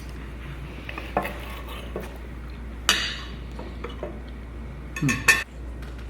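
Cutlery clinking against plates: a few light clicks, one louder ringing clink about three seconds in, and a short cluster of clinks near the end.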